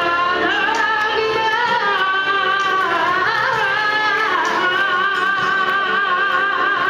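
A woman singing into a microphone, gliding between notes, then holding one long wavering note through the second half.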